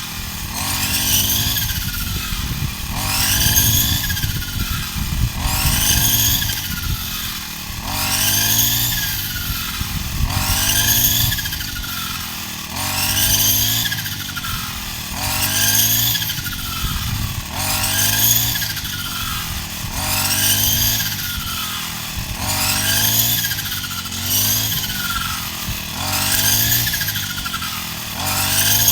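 Small petrol engine of a rice harvesting machine running under changing load, its pitch and loudness rising and falling in a steady cycle about every two and a half seconds.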